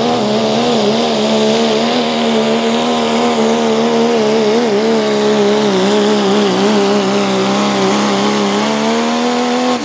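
Ford Super Duty diesel pulling truck running hard at full throttle under load as it drags the sled, its engine note loud and holding a nearly steady pitch. Near the end the driver lifts off and the engine note drops away suddenly, the end of the pull.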